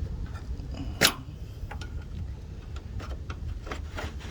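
Sharp plastic clicks and taps of the retaining clips being fitted into a car's headlamp housing, one loud click about a second in, over a steady low rumble.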